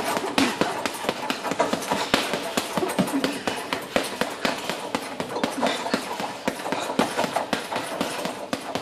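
Boxing gloves striking a hanging FIGHTER heavy bag in quick combinations, several punches a second with short breaks between flurries.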